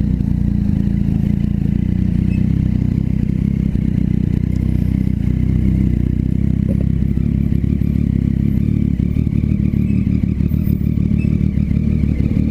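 Motorcycle engine running through a newly fitted, loud aftermarket exhaust, held at a steady engine speed without big revs.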